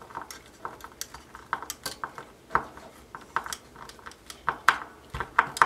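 Hand screwdriver driving a small screw through a steel worm-drive clamp band into soft wood, giving irregular metallic clicks and scrapes a few times a second as the screw is tightened.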